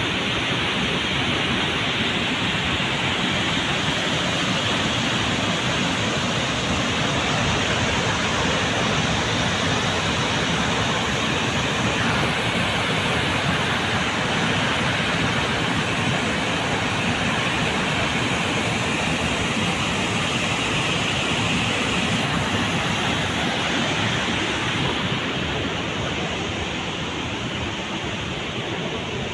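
Steady, loud rushing of floodwater pouring out through the open spillway of a brimming dam reservoir, mixed with wind on the microphone; the high hiss thins a little near the end.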